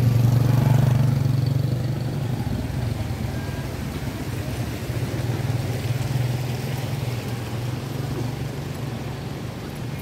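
Motor vehicle engines on the road: a low engine drone that is loudest at the start and fades over the first two seconds, then a steady quieter engine hum.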